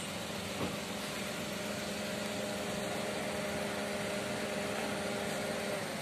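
A steady mechanical hum of constant pitch, like an engine idling, over street background noise; it sets in about a second in and stops shortly before the end.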